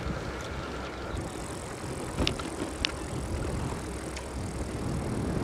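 Riding an e-bike into the wind: a steady rush of wind on the microphone over tyre rumble, with two sharp clicks a little after two seconds in.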